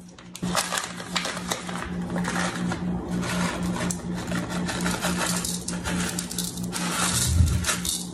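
Packet of dry onion soup mix crinkling as it is handled, tipped and shaken out, the mix pouring into a bowl of ground beef, with a low thump near the end.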